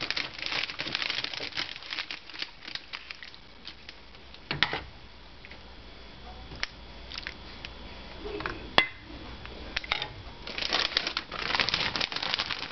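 Kitchen handling noise: crinkling and light clicking as dry lasagne sheets are laid into a glass baking dish and sauce is spooned over them, with two sharp single clicks, one about halfway through and one a few seconds later.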